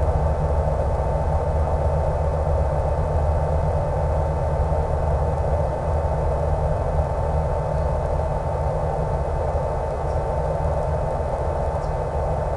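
E-flite Power 10 brushless electric motor and 11x7 propeller of an RC Super Cub running at steady throttle in flight: a constant whine over hiss and a low hum.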